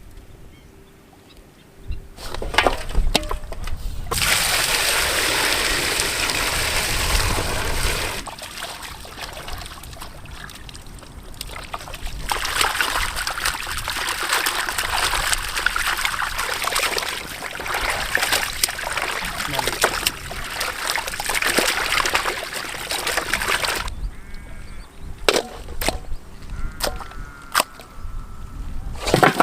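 Water sloshing and splashing in a vessel, in two long stretches, with scattered knocks and clatter near the end.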